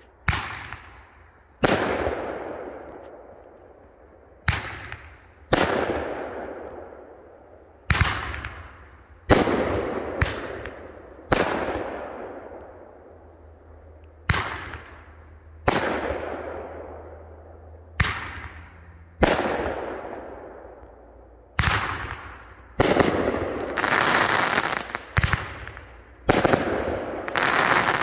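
Sunwing 'Packin Heat' consumer firework cake firing shot after shot, a sharp bang every second or two, each trailing off in a long fading echo. Toward the end the shots come closer together with a louder, denser crackle.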